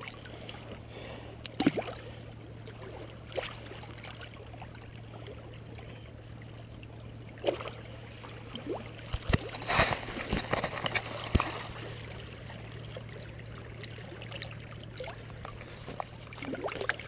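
Shallow sea water lapping and trickling among shoreline rocks, with scattered sharp knocks and splashes, bunched most thickly about nine to eleven seconds in.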